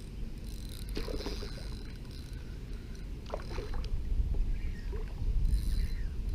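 Low wind rumble on the microphone, getting louder in the second half, with a few light knocks about one second and three and a half seconds in.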